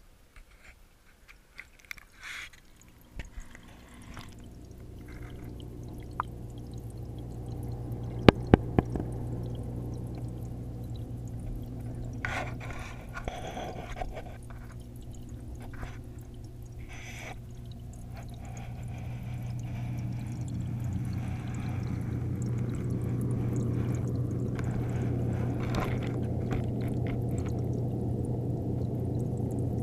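Aquarium filter heard underwater through a GoPro's waterproof housing: a steady low hum and rush of moving water that grows louder in the second half. A few knocks and sharp clicks of the housing being handled come early on and around a third of the way through.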